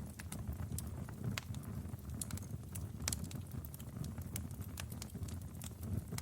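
Wood fire in a fireplace crackling: irregular sharp pops and snaps over a steady low rumble of the flames, with one of the loudest pops about three seconds in.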